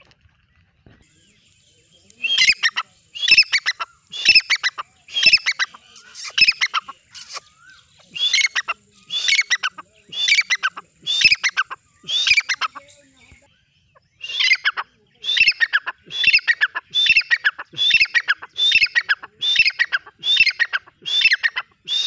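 Grey francolin calling: a loud, high-pitched call phrase repeated about once a second, starting about two seconds in, breaking off briefly past the middle, then resuming.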